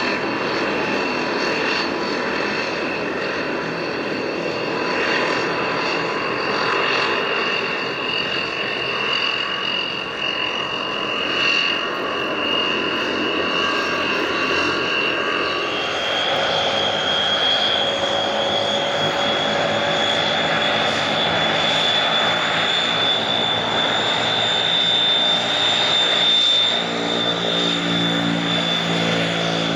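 The twin Rolls-Royce Dart turboprop engines of a YS-11 running as the aircraft slows after landing and taxis, with a steady high-pitched whine. The whine steps up in pitch about halfway through, and near the end a lower propeller hum joins in as the aircraft turns toward the listener.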